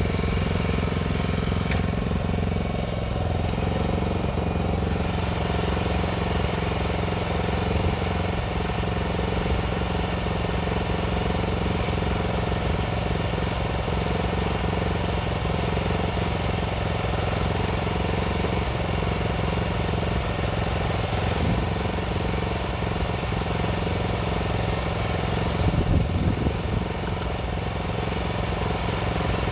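Small engine of a ride-on cabbage transplanter running steadily under load as the machine plants seedlings along the rows, with a brief louder patch near the end.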